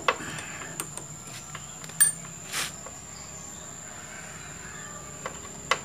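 Scattered short metal clicks and taps of a tool working at a motorcycle's front disc brake caliper, the loudest about two seconds in, followed by a brief scrape, and two more clicks near the end.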